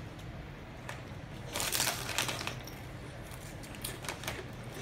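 Crunching of traditional-style potato chips being bitten and chewed, with the foil chip bag crinkling. The crunching is densest about a second and a half in, with a few sharp crackles near the end.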